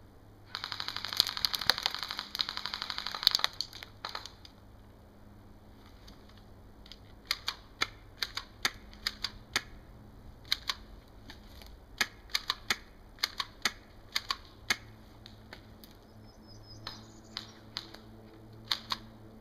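Airsoft gunfire: a long full-auto burst of about three seconds from an electric airsoft gun (AEG), its shots coming in a fast, even rattle, then a few more quick shots. After that, about twenty separate sharp snaps of single airsoft shots follow at irregular intervals.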